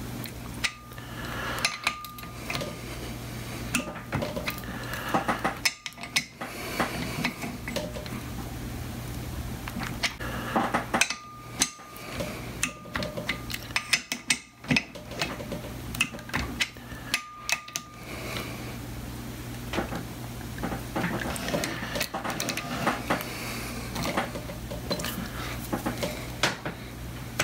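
Inch-pound torque wrench ratcheting and clicking as it tightens the rocker box nuts on a Harley-Davidson Shovelhead cylinder head to 145 inch-pounds, with metal clinks of the socket on the nuts. Irregular sharp clicks come in clusters over a steady low hum.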